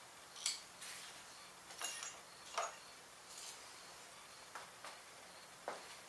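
Hand tools clinking and tapping against small-engine parts: about eight short, light metal clicks at irregular intervals while bolts on the carburetor are worked loose.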